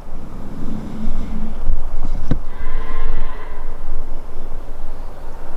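Cows mooing: a low moo about half a second in, then a longer, higher moo with a rasping edge about two and a half seconds in. There is a single sharp click between the two calls.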